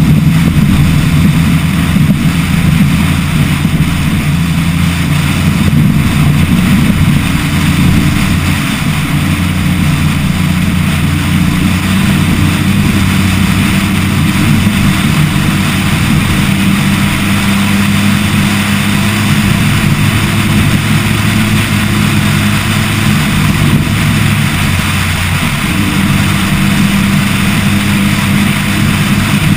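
Toyota Tacoma's engine running hard as the truck drives fast over a sandy dirt track, with a steady rush of wind and tyre noise. The engine note shifts up and down a few times with throttle and gear changes.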